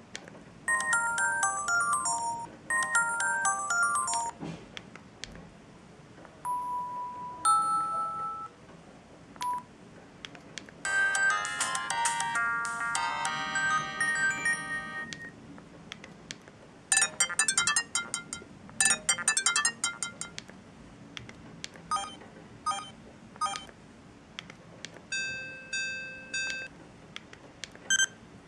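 Sharp GX29 mobile phone playing a run of short ringtone previews one after another, each a brief electronic melody with a pause before the next. They go from quick beeping phrases and a few single tones to a fuller chordal phrase, rapid repeated notes, and held chimes near the end.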